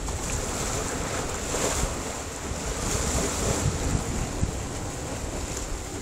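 Sea surf washing against a rocky shore: a steady hiss of small waves that swells up twice, about two and three seconds in, with wind rumbling on the microphone underneath.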